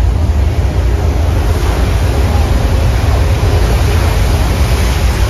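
Staged earthquake-and-flood effect: a loud, steady deep rumble under the rush of a torrent of water pouring through a subway-station set.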